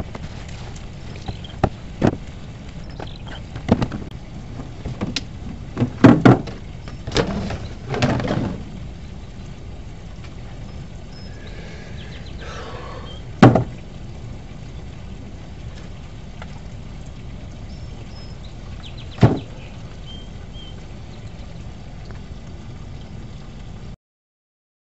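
Knocks and thuds of a black plastic tub and small gear being set into an RV's storage bay: scattered taps at first, a cluster of loud knocks about six to eight seconds in, then single sharp knocks about halfway through and again near the end, over a steady low background noise.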